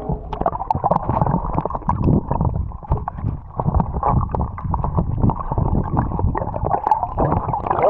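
Water sloshing and gurgling close against the microphone, muffled, with many irregular small knocks and splashes, as someone swims in shallow lagoon water.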